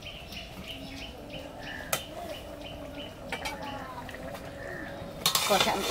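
Small birds chirping faintly over and over. A single sharp click comes about two seconds in, and a clatter of an aluminium pot and lid comes near the end.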